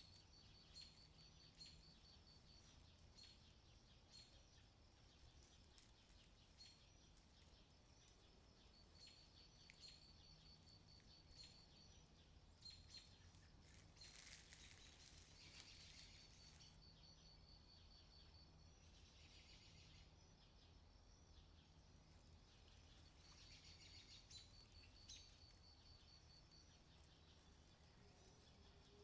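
Near silence: faint woodland ambience with small birds giving high, rapid trills and chirps off and on.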